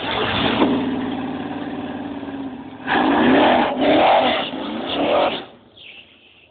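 Drag race car's engine held at steady high revs at the start line, then launching with the revs climbing hard as it pulls away; the sound drops off sharply after about five seconds.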